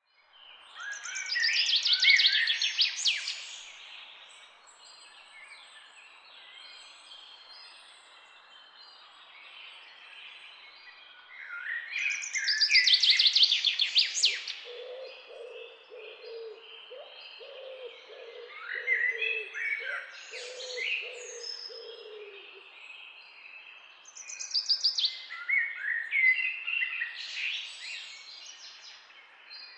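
Several wild birds singing. One bird repeats a loud, fast, trilling song phrase three times, near the start, around the middle and near the end. Softer chirps and calls come in between, and a lower call repeats evenly for several seconds from about the middle.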